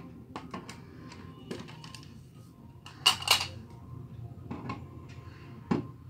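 Screwdriver turning out an outlet cover-plate screw with small clicks and scrapes, then a sharp double clatter about three seconds in as the plastic wall plate and its screw come off, and a short thump near the end.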